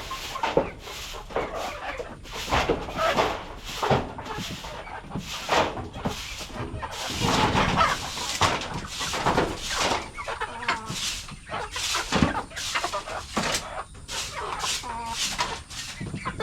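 A flock of local chickens clucking as they feed on scattered rice, a quick run of short calls one after another.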